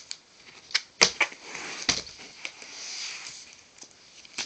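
A ring binder of trading cards in plastic sleeve pages being handled: several sharp clicks and taps in the first two seconds, then a soft rustle of the plastic pages.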